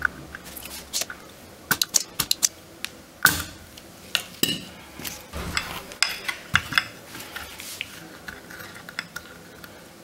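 Irregular light clicks and metallic taps from small hand tools working on a TV power-supply circuit board while a wire jumper is taken off it.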